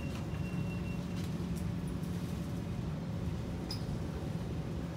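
Inside a Kawasaki C151 metro car rolling slowly along a station platform: a steady low hum and rumble from the running gear and traction equipment. A thin high whine stops about a second in, and there are a few light clicks.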